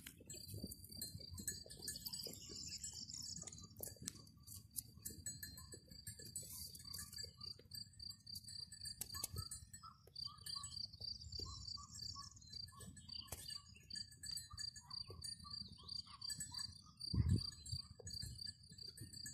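Outdoor natural ambience: a steady, rapid, high-pitched chirping runs throughout, with scattered lower chirps and a low rumble that swells briefly near the end.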